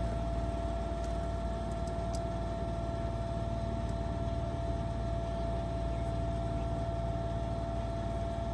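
A car running steadily on the road: an even low rumble with a faint steady whine above it.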